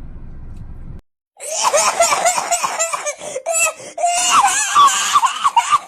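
A person laughing hard in rapid, high-pitched bursts, starting about a second and a half in after a short low hum and a brief gap.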